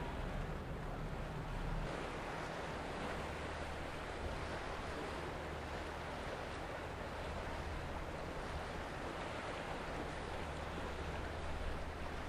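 Steady outdoor sea ambience: wind buffeting the microphone and the wash of waves, with a low steady hum underneath.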